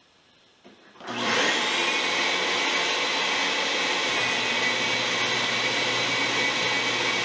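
Shop vacuum for dust extraction switching on about a second in, spinning up quickly, then running with a steady loud whoosh and hum.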